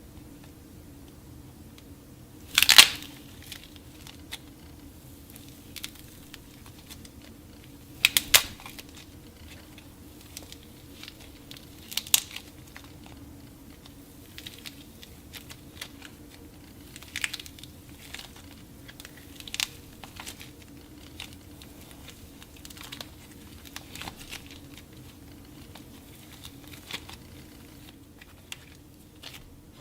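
Dried clay being cracked and crumbled by hand: sharp crackling snaps, the loudest about three seconds in, then smaller cracks and crumbles every few seconds.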